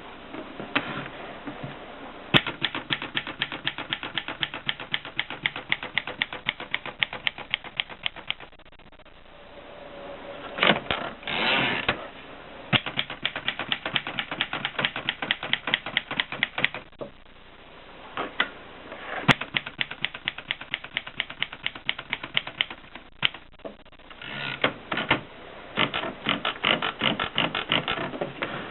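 Erika M portable typewriter being typed on: runs of sharp keystrokes at about five a second, broken by short pauses, with a longer rush of mechanical noise about ten seconds in.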